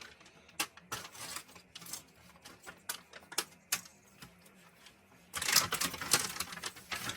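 Plastic packaging being handled, with scattered light clicks and a louder stretch of crinkling about five seconds in.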